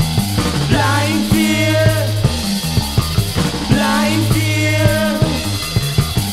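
Gothic rock recording in an instrumental passage: drum kit keeping a steady beat under sustained bass notes, with a wavering guitar figure that repeats about every second and a bit.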